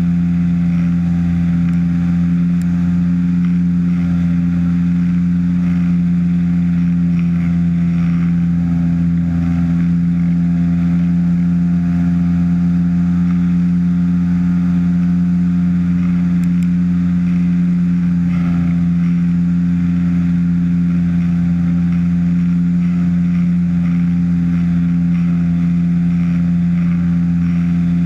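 Ultralight trike's engine and pusher propeller running steadily in flight, a constant-pitch drone with wind rush over the open airframe.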